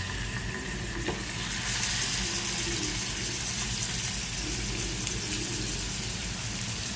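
Pieces of chicken sizzling in hot oil in a frying pan, a steady hiss that grows louder about a second and a half in.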